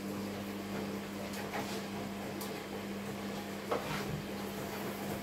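Light knocks and handling noises as raw meat is taken from a plastic bowl and set on a wooden cutting board, the sharpest knock about three-quarters of the way through. Under them runs a steady low hum from a kitchen appliance.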